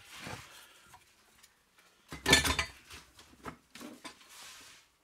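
Pieces of cast-aluminium scrap clinking and clattering in a plastic crate, with one clear clatter about two seconds in and a few smaller knocks after it.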